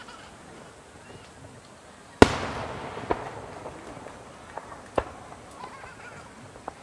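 Aerial firework shells bursting: one loud boom about two seconds in, its echo rolling away for about a second, then smaller bangs near three and five seconds and a couple of fainter pops.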